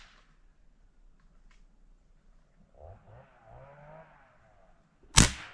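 Mendoza Halcón air rifle firing once near the end: a single sharp shot, by far the loudest sound, taken at a chachalaca. A few quieter wavering sounds come a couple of seconds earlier.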